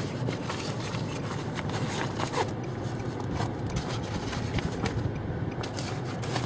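Strong sandstorm wind buffeting the microphone: a steady rushing with irregular crackles and rustles all through.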